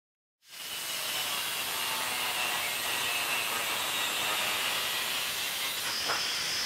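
Angle grinder with a thin cutting disc cutting a metal plate: a steady high whine over a hiss, starting abruptly about half a second in. Near the end the pitch rises as the disc lifts off the metal.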